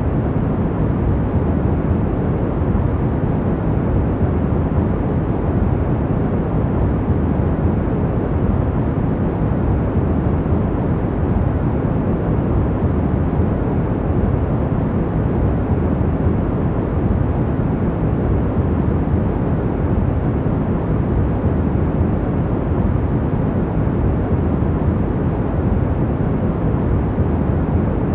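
Steady, unchanging sleep-aid noise, deep and even with most of its weight in the bass and little hiss at the top.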